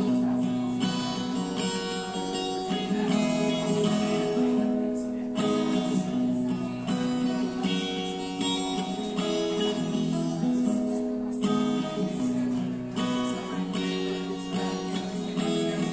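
Acoustic guitar strumming chords in a steady rhythm, the chords changing every second or two.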